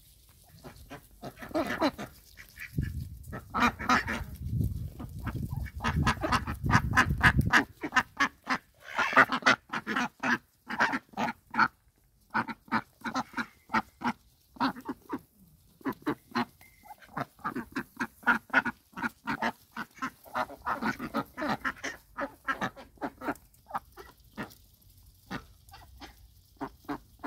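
Indian Runner ducks quacking: many short calls in quick runs, with brief pauses between bursts. A low rumble sits under the calls from about three to seven seconds in.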